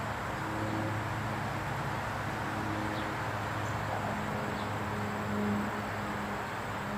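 Cessna 208B Grand Caravan flying overhead: the steady drone of its single PT6A turboprop engine and three-bladed propeller, a low hum with a rushing hiss over it.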